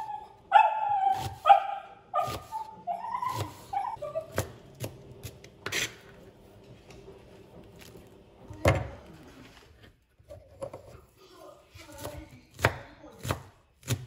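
Kitchen knife chopping and dicing a red onion on a plastic cutting board: irregular sharp taps of the blade on the board, with a louder knock about two-thirds of the way through. In the first few seconds a dog whines several times.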